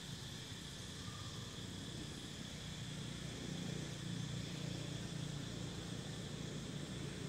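Steady outdoor background: a constant high insect hum over a low rumble, with no distinct events.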